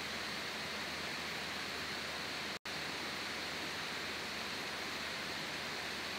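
Steady hiss of the microphone and recording noise floor, with no speech, and a momentary complete dropout of the audio about two and a half seconds in.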